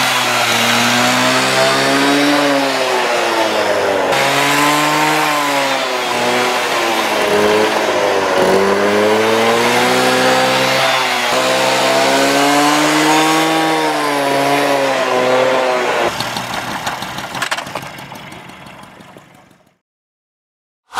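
Piaggio Ciao moped's 49 cc two-stroke single-cylinder engine revved hard over and over, its pitch rising and falling every couple of seconds. Near the end the engine note stops and the sound fades out.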